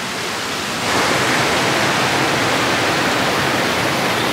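Water rushing through the drain grate of a small concrete river dam, a steady, loud rushing noise that steps up in level about a second in.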